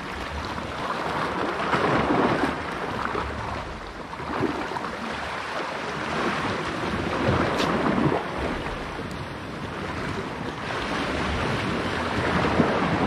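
Sea waves washing against shoreline rocks, swelling and easing every few seconds, with wind buffeting the microphone.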